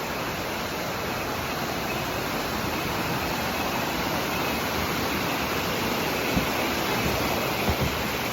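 Steady rushing of Sekumpul Waterfall's falling water, growing slightly louder, with a few faint knocks near the end.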